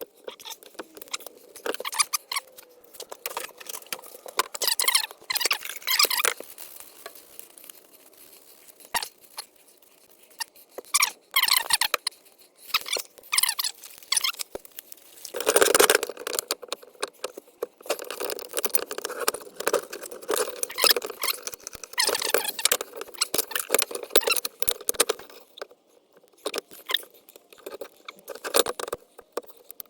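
Metal parts of a split differential being worked apart by hand: irregular squeaks and scrapes of metal on metal, with sharp knocks.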